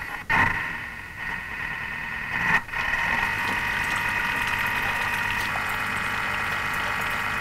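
Thermomix running at speed 3, its motor giving a steady whine as the blade stirs gelatin into sugar syrup in the mixing bowl.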